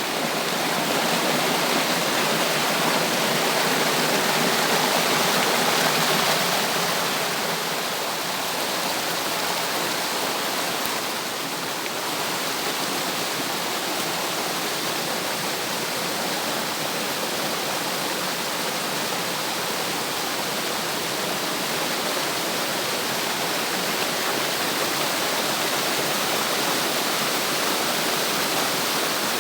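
Water cascading down a waterfall: a steady rushing hiss, a little louder in the first several seconds.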